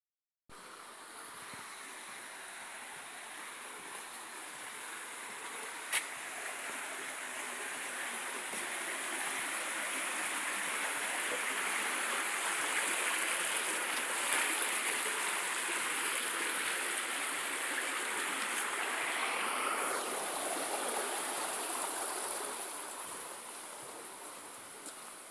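Flowing stream water, a steady rushing hiss that swells through the middle and eases off near the end, with a single sharp click about six seconds in.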